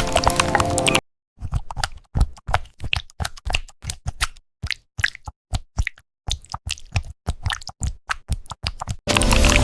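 Squishy, wet key presses on a jelly-textured fruit keyboard, an AI-generated ASMR typing sound. They come as a run of separate short taps with silent gaps between them, irregular, about two to four a second. A loud, dense sound fills about the first second, cuts off abruptly, and comes back just before the end.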